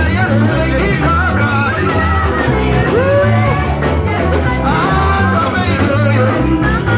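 Church worship music: singing over a band with a steady, repeating bass line.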